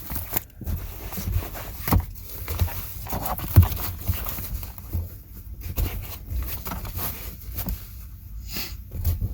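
Handling noise from fitting a fabric seat cover onto a truck seat headrest: rustling and scuffing of the cover with irregular soft bumps and knocks, one louder thump a little past three and a half seconds in.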